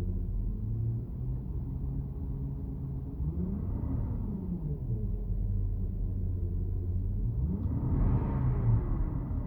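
Porsche Cayenne Turbo's PDCC hydraulic system whining and humming, heard inside the cabin: a steady drone of several low tones, with a whine that sweeps up and back down in pitch twice, louder the second time near the end. The uploader says it is no sign of a fault and puts it down to the lack of a pulsation damper in the PDCC system.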